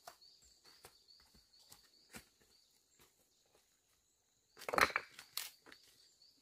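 Footsteps crunching on loose dry dirt, sticks and leaves on a steep slope, with scattered small crackles, then a louder burst of crunching and scraping about three-quarters of the way through as flat stones and debris are shifted by hand.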